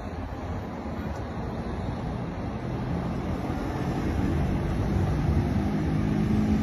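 Street traffic: cars driving past, with a vehicle engine growing louder toward the end.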